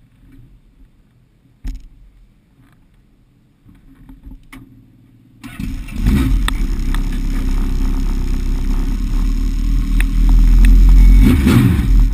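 Legend race car's Yamaha four-cylinder motorcycle engine heard from inside the cockpit: a thump and a few clicks, then the engine fires up about halfway through and runs loudly at a steady rumble, a little louder near the end.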